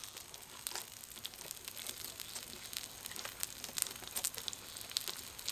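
Pork belly sizzling on a grill, fat crackling with irregular small pops.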